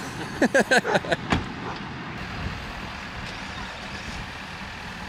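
Large pickup truck's engine idling steadily, a low hum under outdoor background noise.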